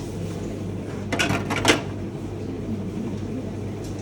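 A few knocks and clatters about a second in, over a steady low hum.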